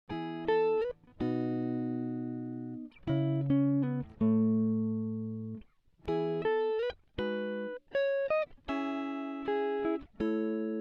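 Background music: plucked guitar chords and single notes, each struck and fading away.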